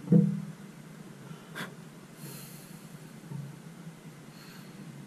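A short, loud breath or snort from the person at the vise right at the start. About a second and a half in comes a single sharp click, then a soft hiss like a breath, over a low steady hum.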